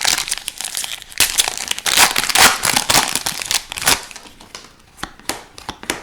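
Crinkling and rustling as hockey trading cards and their packaging are handled, dense for about four seconds, then a few light clicks and ticks near the end.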